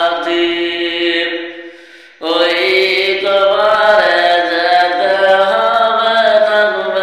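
A man singing a Bengali gojol (Islamic devotional song) solo in long, drawn-out held notes. His voice fades away about a second and a half in and comes back suddenly just after two seconds.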